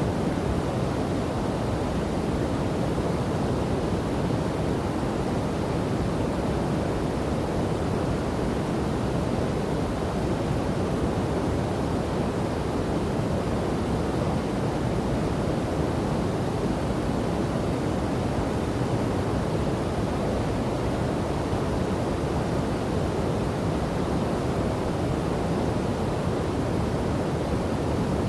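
River and waterfall rushing water: a steady, even roar, heaviest in the low and middle range, with no change throughout.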